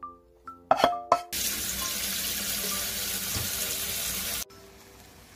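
Tap water running hard into a stainless steel bowl of dried radish greens for about three seconds, then cutting off suddenly. Just before the water, a few sharp knocks, the loudest sounds here. Soft background music plays underneath.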